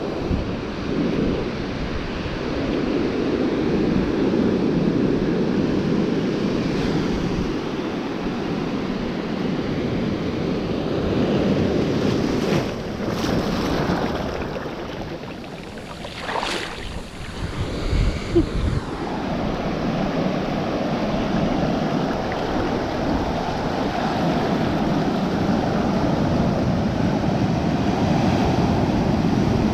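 Ocean surf rushing and churning around a GoPro held in the waves. A few sharp splashes come past the middle, then a brief quieter lull with low knocks before the wash of the waves returns.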